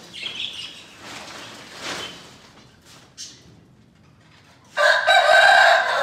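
A cloth cover rustles as it is pulled back from a bird cage, then about five seconds in a rooster crows: one long, loud call.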